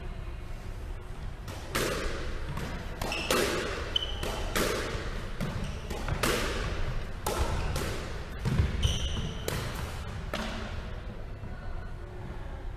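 Squash ball being hit with rackets and smacking off the court walls: about a dozen sharp, echoing impacts at irregular intervals, with a few short sneaker squeaks on the wooden floor.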